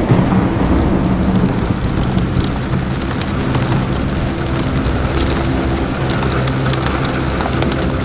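Heavy rain falling on a car's windshield and roof, heard from inside the car as a loud, steady wash with many sharp individual drop hits and a steady low hum underneath.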